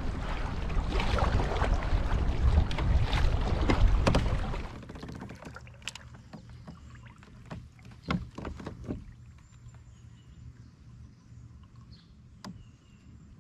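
Wind buffeting the microphone while a kayak moves over choppy lake water, loud for the first few seconds. About five seconds in it drops suddenly to a quiet lake background with a few light knocks and clicks.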